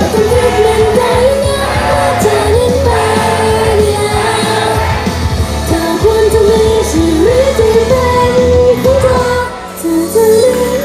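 Pop song sung by a female idol group, the lead vocal line carried over a loud backing track with a steady bass beat. The bass drops out about nine and a half seconds in while the singing carries on.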